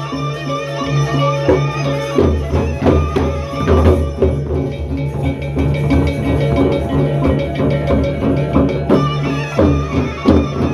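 Lombok gendang beleq ensemble playing: large barrel drums beaten with sticks and clashing hand cymbals over steady held low tones. The strikes come thick and uneven, with heavier accents about two seconds in, around four seconds and near the end.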